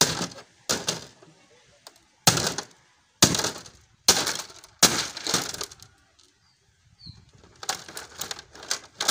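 A metal tool struck hard into the plastic back casing of an old LED TV: six sharp blows over about five seconds, each with a short cracking rattle, then a run of lighter, quicker knocks near the end. The casing is cracking and breaking apart rather than being pierced.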